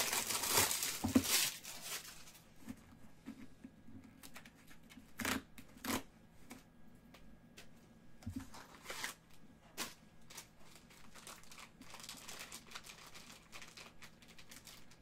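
A small cardboard trading-card box torn open by hand, loudest in the first second and a half, followed by a few sharp snaps and then the crinkling of a black plastic pack wrapper being handled.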